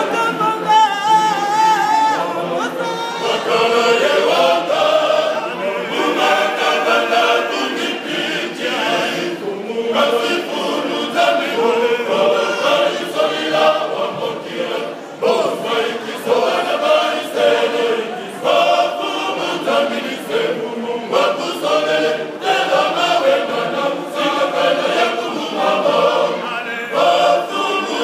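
Male church choir singing unaccompanied, many voices together.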